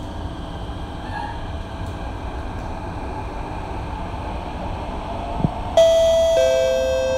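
Steady running noise of a Thomson-East Coast Line T251 metro train. Near the end a two-note descending chime rings out, the chime that signals an onboard announcement.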